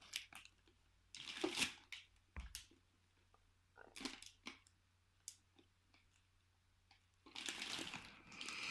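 Faint handling noises: scattered clicks and rustles, one low knock, then a longer crinkling rustle of packaging from about seven seconds in, as the parts of a micro hi-fi system are unpacked.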